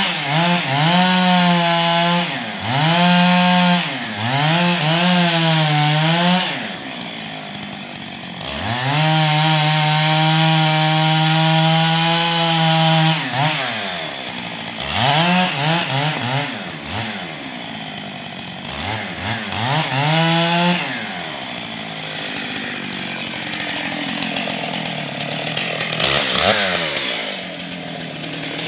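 Stihl MS 661 two-stroke chainsaw with a 36-inch bar cutting into a thick tree trunk at high revs. Its pitch dips and climbs back several times and holds steady for a few seconds in the middle. For the last several seconds it runs lower and quieter, with one short rev near the end.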